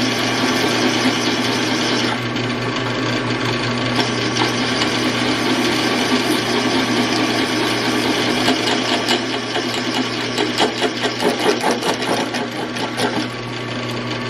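WEN 4225 15-inch floor drill press running with a steady motor hum, its twist bit grinding through one inch of hot-rolled steel plate. About nine seconds in, a quick, uneven rattling chatter joins the cut and eases off near the end.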